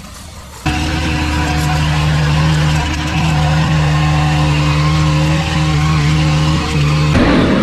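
Small gas engine of lawn equipment running steadily at high speed, coming in abruptly at full volume under a second in. Near the end its pitch dips sharply and swings back up.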